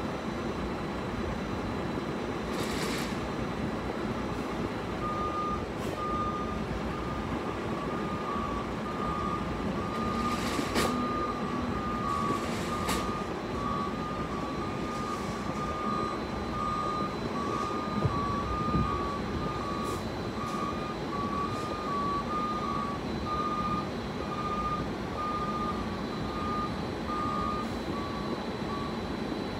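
Truck's reversing alarm beeping at an even pace, starting about five seconds in, heard from inside a parked car.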